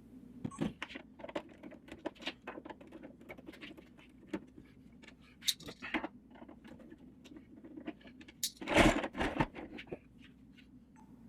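Scattered small clicks and clinks of a screwdriver and screws as screws are worked out of a plastic pool cleaner's housing, with a louder scraping handling noise about nine seconds in.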